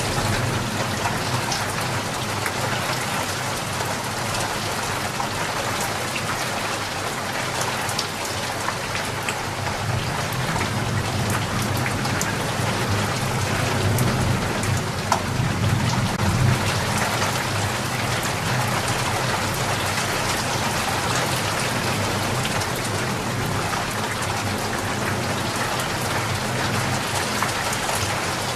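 Steady heavy rain pattering on surfaces, with many distinct drop hits and a low rumble beneath, swelling a little around the middle.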